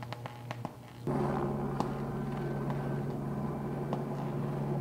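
A power line arcing in a tree: a few sharp crackles, then about a second in a loud, steady electrical buzz starts suddenly, a mains hum with several overtones.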